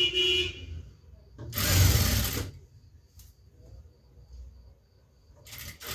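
Industrial sewing machine stitching piping in short runs: a brief whine at the start, a run of about a second, then a longer steady run beginning near the end.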